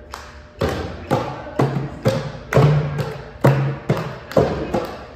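Hand drums and hand claps keeping a steady beat, about two strikes a second, some strikes leaving a short low drum tone.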